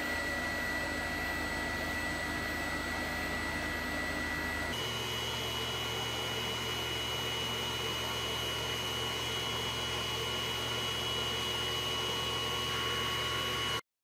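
Vacuum pump running steadily as it draws down the vacuum fryer's chamber: an even mechanical noise with a low hum and a high steady whine. The whine and hum change pitch suddenly about five seconds in.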